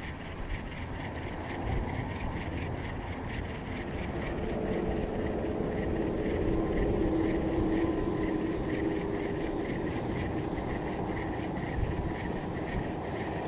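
Wind rumbling on the microphone. A distant engine drone swells in the middle and then fades away.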